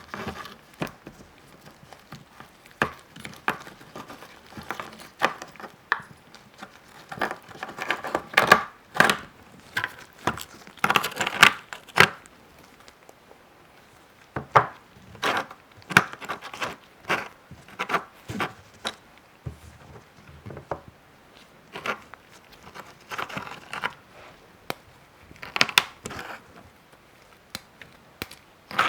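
Hands working a homemade ice pop-it fidget toy, making irregular sharp clicks, cracks and crinkles. The sounds come in quick clusters through the first half and grow sparser after that.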